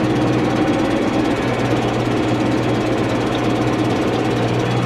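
Tractor engine running steadily under load, heard from inside the cab as a constant low drone.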